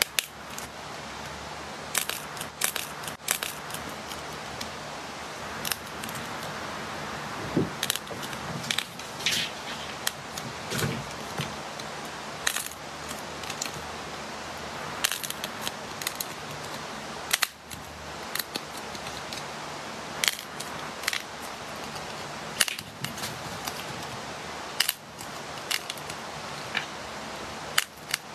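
Thick, soft purple slime being squeezed, torn and kneaded by hand, giving irregular sharp pops and clicks over a steady hiss.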